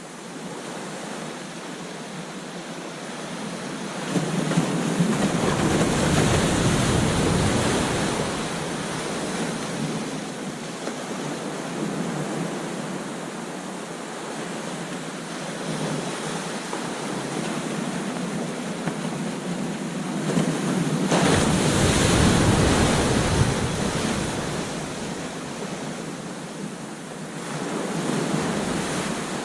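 Ocean surf: waves breaking and washing up a beach, with loud breakers about 4 seconds in and again about 21 seconds in and a smaller one near the end, and a little wind on the microphone.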